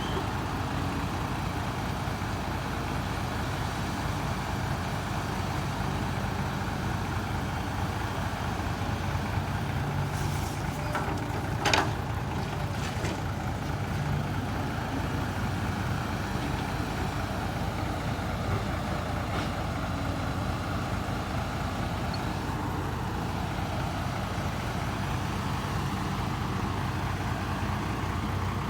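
Heavy diesel truck engine running steadily, with one short sharp hiss about twelve seconds in.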